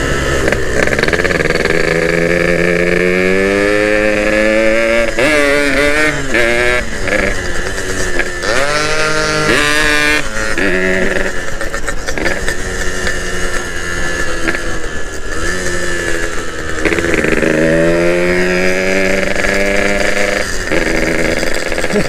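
Yamaha RX King's two-stroke single-cylinder engine under way, heard from the rider's seat: the pitch climbs as it accelerates, several times over, and falls back between climbs as the rider shifts or eases off.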